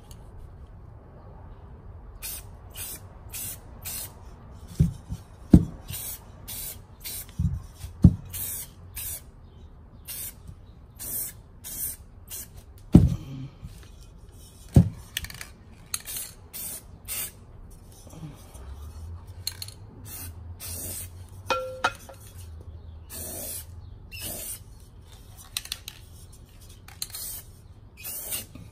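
Rust-Oleum aerosol spray can spraying a coating into a clay pot in many short hissing bursts, one after another. A few sharp knocks stand out in the first half.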